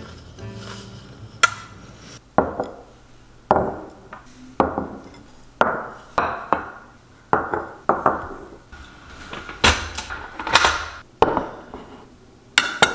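Ceramic bowls being set down one after another on a wooden countertop: about a dozen knocks, roughly one a second, each with a short ring.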